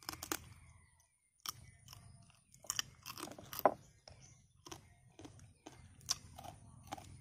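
Close-up chewing and crunching of braised field crab. Irregular crisp cracks come as the shell is bitten, the loudest about three and a half seconds in.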